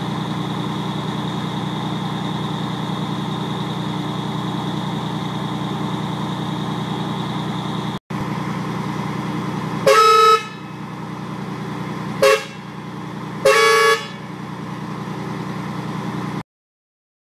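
Old Scania truck's diesel engine idling steadily, with three horn blasts over it about ten seconds in: a half-second blast, a short toot, then another half-second blast. The sound cuts off suddenly near the end.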